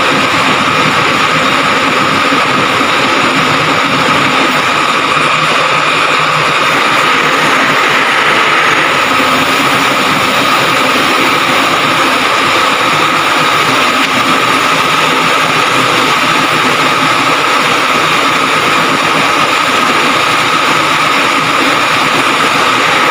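Heavy engine running steadily with a constant high whine, from the crane lifting a bundle of steel plates.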